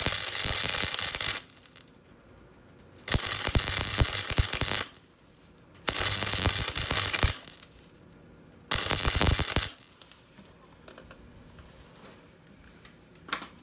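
MIG welding arc crackling on thin car-body steel in four bursts of one to two seconds each, stitch-welding a repair panel onto a car's front wheelhouse. A single faint click comes near the end.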